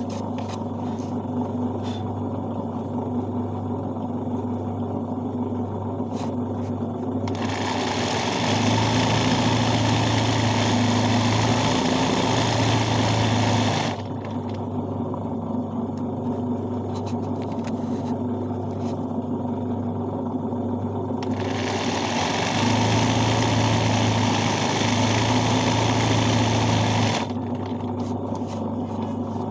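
Sewing machine stitching free-hand embroidery on cloth in a hoop, its motor running steadily with a low hum. Twice, from about a quarter of the way in and again from about two thirds of the way in, it runs faster and louder for some six seconds before settling back.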